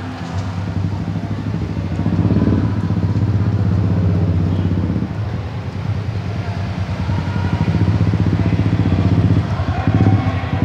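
Motorcycle engine running as the bike rides slowly up, its low pulsing note swelling about two seconds in and again near the end as it draws close.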